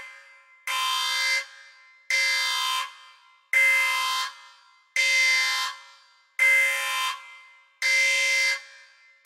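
Electronic alarm sounding in repeated buzzing blasts, each about three-quarters of a second long and coming about every second and a half, with a short echo after each.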